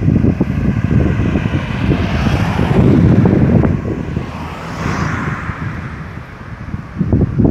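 Cars passing on the road close by: a swell of tyre and engine noise builds and fades twice, the nearer pass about halfway through as a white Nissan goes by. Wind buffets the microphone with a heavy gusty rumble throughout.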